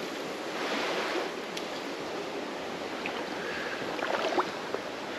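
Shallow creek water running steadily over rocks, swelling briefly about a second in, with a few faint ticks later on.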